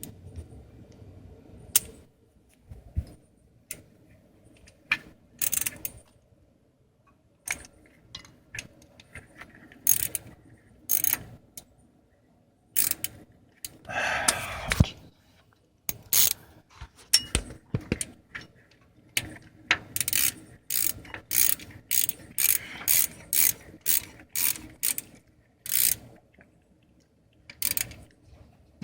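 Hand ratchet wrench clicking in short strokes as a transmission speed sensor's hold-down bolt is run in, scattered at first and then in quick regular strokes about twice a second near the end. A longer, louder grating clatter of metal tools comes about halfway through.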